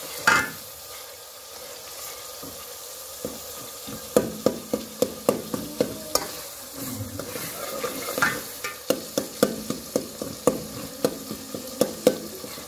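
Tomatoes and onions sizzling in a metal pot while a metal spoon stirs them, scraping and knocking against the pot's sides. After one knock right at the start, the spoon strikes come quickly from about four seconds in, about three a second.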